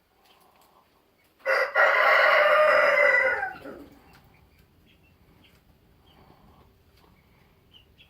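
A rooster crowing once, a loud call of about two seconds starting about a second and a half in, its pitch dropping at the end.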